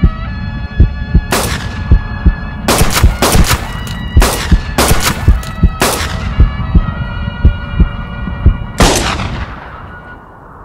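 Around ten revolver gunshots, each with an echoing tail: a rapid exchange of shots in the first half, then a single last shot near the end. Under them a western film score holds sustained tones over a steady low drumbeat and fades out.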